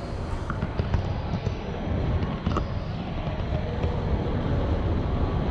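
Steady low rumble of an inclined airport moving walkway carrying riders, with a few faint clicks.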